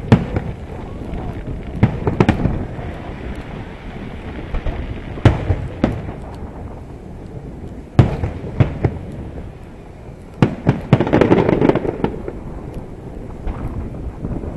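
Aerial fireworks shells bursting one after another, sharp booms every second or two with a busier stretch of bangs and crackle about eleven seconds in.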